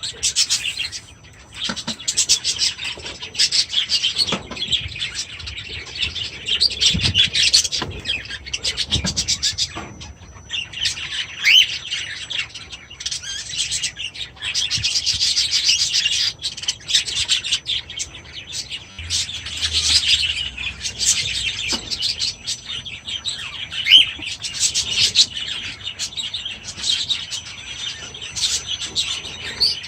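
Aviary birds chirping and chattering continuously, many short high calls overlapping.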